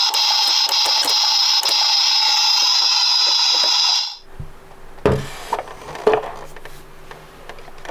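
A battery-powered toy bus's sound chip plays a steady electronic sound through its small built-in speaker. It cuts off suddenly about four seconds in. Faint clicks and knocks from handling the plastic toy follow.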